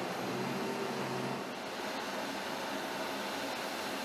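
Steady rushing machinery noise inside a cargo aircraft's hold while vehicles load it, with a low engine hum that drops out about a second and a half in.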